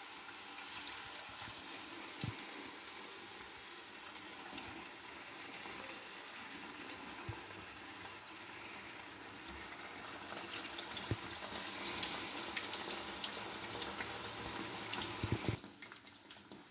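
Marinated, cornflour-coated chicken pieces deep-frying in hot oil: a steady sizzle and bubbling with a few small clicks. It grows louder from about ten seconds in as more pieces fill the pan, and drops away just before the end.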